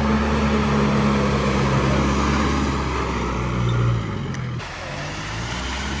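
Mahindra Thar off-road SUVs driving through a shallow river: the engine runs steadily under the splash and rush of water thrown up by the wheels. The engine swells briefly a little before four seconds. Then the sound changes abruptly to a second Thar wading through, with a softer engine and the water noise.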